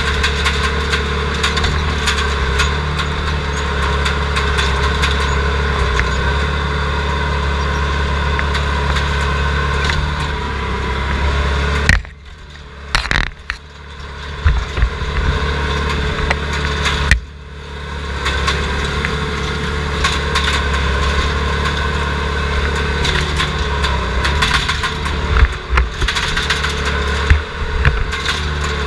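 Diesel engine of a heavy machine running steadily, heard from inside its screened cab, with scattered knocks and clanks. The sound drops sharply twice, about twelve and seventeen seconds in, and then comes back.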